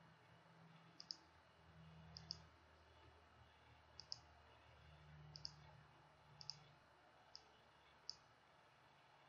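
Faint computer mouse clicks, about seven of them a second or so apart, several in quick pairs, over a faint low hum.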